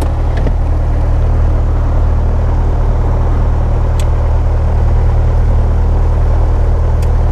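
Single-engine light aircraft's piston engine running steadily just after start-up, heard from inside the cockpit: a loud, even engine hum with a deep low rumble.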